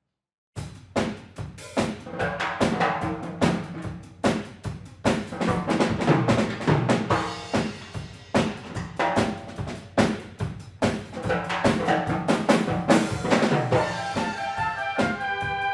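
Wind band playing with a drum kit to the fore: a busy beat of snare, bass drum and rimshots over the band. The band starts abruptly after a brief silence, and held brass chords build near the end.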